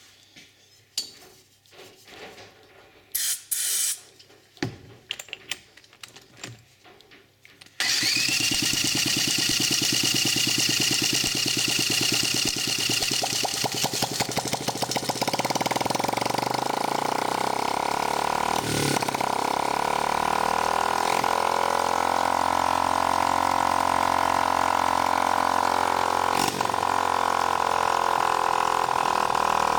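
Clicks and taps, then about a quarter of the way in a cordless drill whines as it spins a 1975 Honda C50's 49 cc four-stroke single-cylinder engine over by the flywheel nut. About halfway through the sound settles into the engine running on its own, steady but lumpy, a sign that it needs adjustment.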